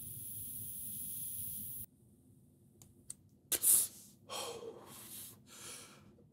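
A person drawing a long hit from a vape (a "blinker"): faint hiss at first, then a few short breathy pulls and gasps, the first the loudest, about three and a half seconds in.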